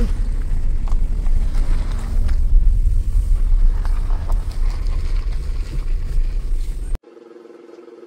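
Low, steady rumble of a car driving, heard from inside the cabin. About seven seconds in it cuts off abruptly to a much quieter background with a faint steady hum.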